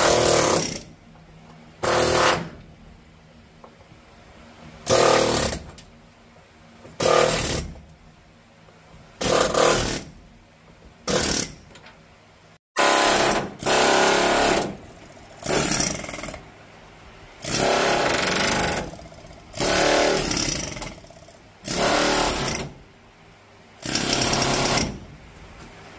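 Pneumatic air chisel hammering against sheet metal in a dozen or so short bursts, each under two seconds, with pauses between. It is cutting an old factory headliner fitting off the cab roof of a 1950 Chevy panel truck.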